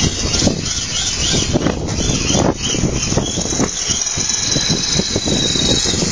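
Tamiya TA01 radio-controlled drift car's electric motor and gear drivetrain whining as it is driven, with a high steady whine for about two seconds in the second half. A loud rough low rumble runs underneath.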